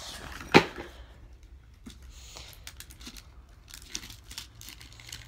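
A box and its packaging being opened by hand: one sharp crack about half a second in, then faint rustling and small clicks as it is pulled open.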